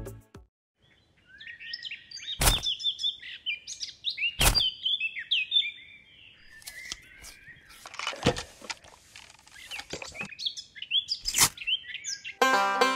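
Small birds chirping in quick, short calls, with four sharp knocks spread through. Banjo music comes in near the end.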